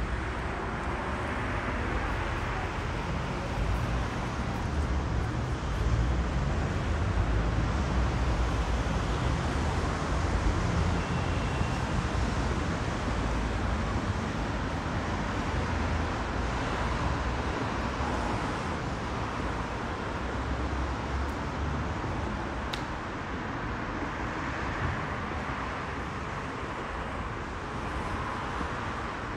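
Steady city street traffic: a low rumble of passing cars and engines under an even hiss, a little quieter in the second half.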